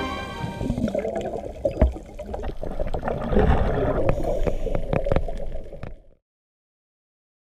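Underwater audio heard through a camera's waterproof housing: muffled bubbling and gurgling of scuba exhaust bubbles, with scattered sharp clicks. It cuts off to silence about six seconds in.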